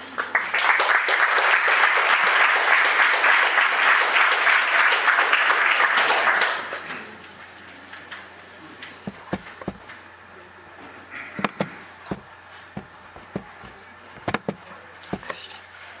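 Audience applauding in a lecture hall for about six seconds, then dying away. After that come scattered small knocks and clicks.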